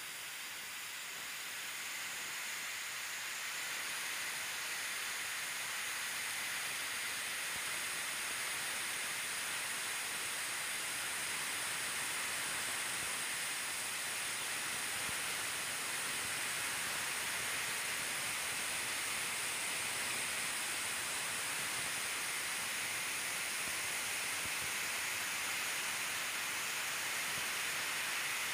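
A steady, even hiss, mostly high in pitch, with no distinct events; it swells slightly over the first few seconds, then holds level.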